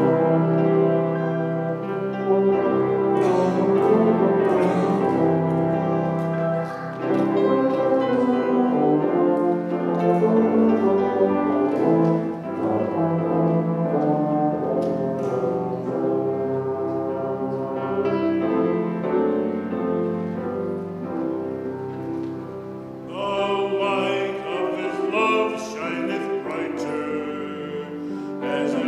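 Church music: long held chords on a keyboard instrument, with a solo singing voice with vibrato coming in about two-thirds of the way through.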